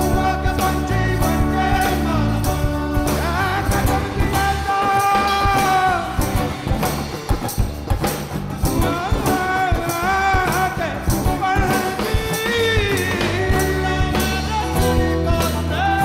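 A rock-fusion band playing a song live in a room: a man sings a long, bending melody into a microphone over strummed guitar, low bass notes and percussion.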